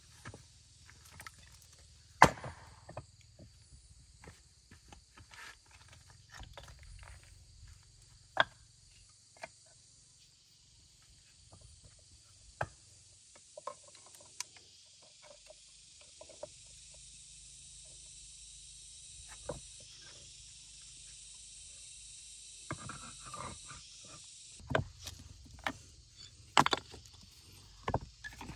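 Sharp knocks at irregular intervals, the loudest about two seconds in and several more near the end, over a steady high insect drone that grows louder in the middle.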